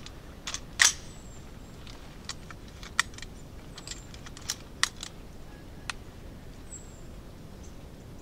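Irregular sharp ticks of rain drips falling on the leaves and reeds of a hunting hide, over a soft steady background of light rain, with a faint short high chirp near the end.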